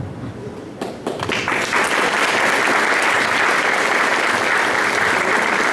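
Audience applauding: the clapping starts about a second in and quickly builds to steady applause.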